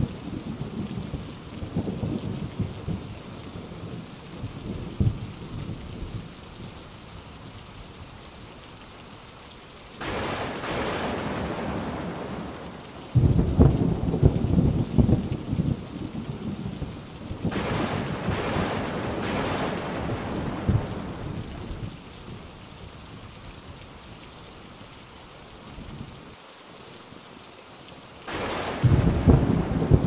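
A thunderstorm with rolling thunder over rain. A long rumble fades over the first few seconds. A sudden loud peal about thirteen seconds in rumbles on for several seconds, and another loud rumble starts near the end. The rain hiss swells and fades in between.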